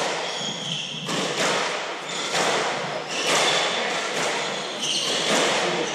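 Hardball doubles squash rally: the hard ball cracking off racquets and court walls about once a second, with short high squeaks between the hits.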